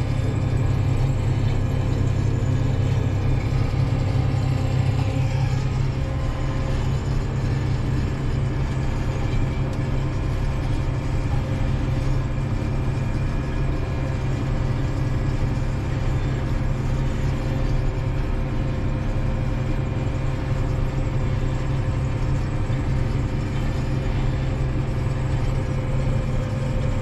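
Tractor engine running steadily under load while pulling a row-crop cultivator, a constant low drone with no change in pitch.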